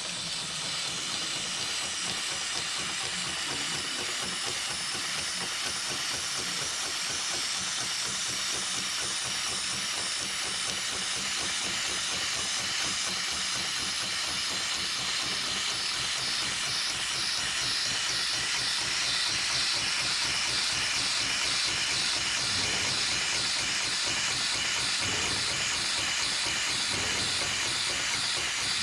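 HIGHTEX 71008 heavy-duty pattern tacking machine running steadily as it sews a zigzag bar-tack through a thick rope, a fast run of needle strokes under a steady hiss.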